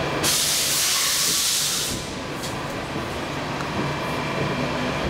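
Stockholm Metro C14 car's pneumatic system letting out a sharp hiss of compressed air for about two seconds while the train stands at a station, cutting off suddenly. A steady low hum from the train's equipment runs underneath.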